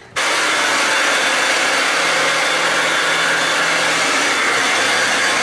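Handheld hair dryer switched on just after the start and blowing steadily on a wet dog's fur, a loud, even rush of air.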